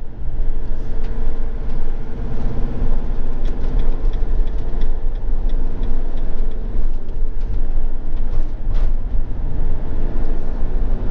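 Motorhome driving on the road, its engine and tyre noise heard as a steady low rumble from inside the cab.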